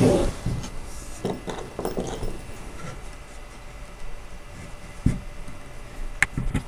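Wood and engineered-wood parts of a doll high chair knocking and rubbing as the side panel is set onto the frame and screws are pushed into their holes by hand: scattered soft knocks, with a sharper knock about five seconds in.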